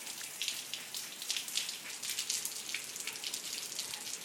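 Steady rain falling: a continuous hiss made up of many small, quick drop hits.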